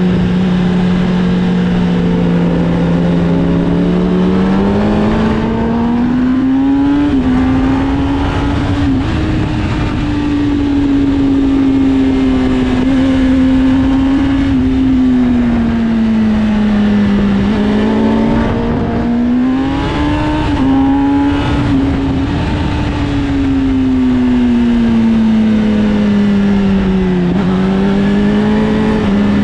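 Inline-four sport bike engine heard on board at track speed, its note rising under acceleration and falling off under braking several times, over a dense rush of wind noise.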